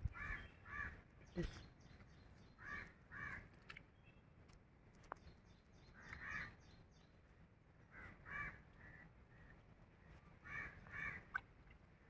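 Faint bird calls, short calls mostly in pairs, repeating every second or two, with a few brief clicks and a soft knock among them.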